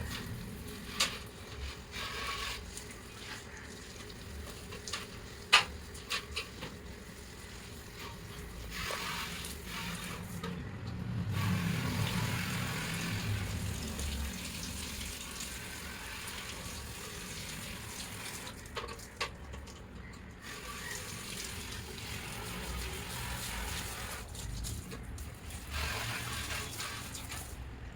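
Water trickling and dripping off freshly rinsed fan parts, a steady wash of noise with a few sharp clicks, the loudest about five seconds in.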